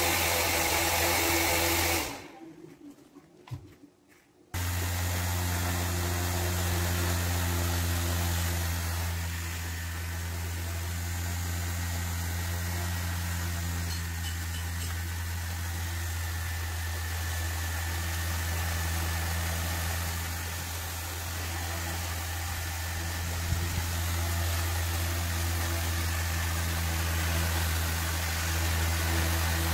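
Small electric motor of a homemade toy running with a steady hum. It cuts out about two seconds in and starts again a couple of seconds later.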